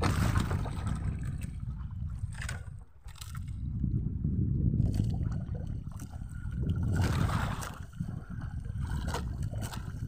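Sea water sloshing and gurgling against the hull of a small outrigger boat. A low rumble surges roughly every three seconds, and a few short knocks and scrapes are heard.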